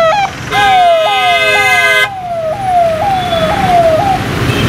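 Police jeep's electronic siren sounding in short repeated sweeps, each falling in pitch, about two a second; it stops about four seconds in. Near the start a steady horn sounds over it for about a second and a half.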